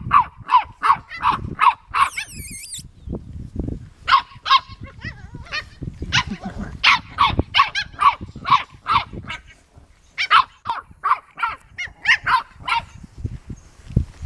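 English bulldog puppy barking repeatedly in quick runs of several short, high barks, about three a second, with brief pauses between runs.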